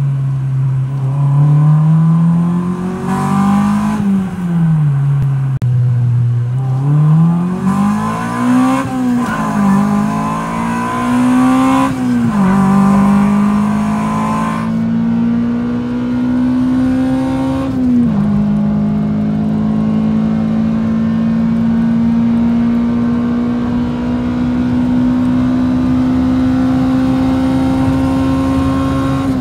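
1999 Honda Civic Si's B16A2 1.6-litre DOHC VTEC four-cylinder, with a Spec D cat-back exhaust and AEM cold air intake, heard from inside the cabin as the car accelerates hard. The engine note climbs and drops back at each of four upshifts, three within the first twelve seconds and one about eighteen seconds in. It then settles into a steady, slowly climbing drone at cruise.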